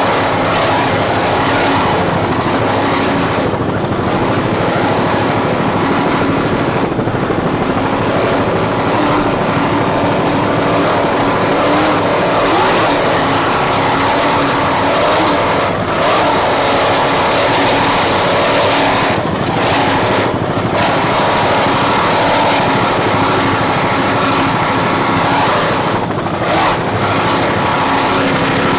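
Loud, steady engine drone with a dense rushing noise, without a break, typical of offshore race footage shot at speed with engines and rotor close to the microphone.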